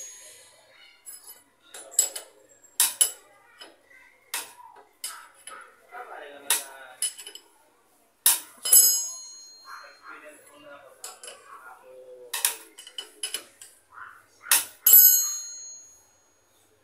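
Metal hand tools clinking and striking against the motorcycle's rear wheel hardware while the axle nut is loosened, about a dozen sharp metallic hits that ring briefly, the loudest about eight seconds in and near the end.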